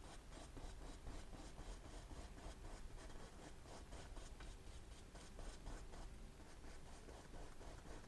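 Bristle paintbrush stroking oil paint onto a stretched canvas in quick, even back-and-forth strokes, about four a second, faint.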